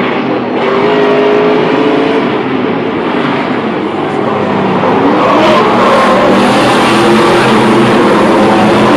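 Stadium Super Trucks' V8 engines running hard as several trucks race past, engine notes rising and falling as they accelerate and lift. The sound grows louder and brighter about five seconds in.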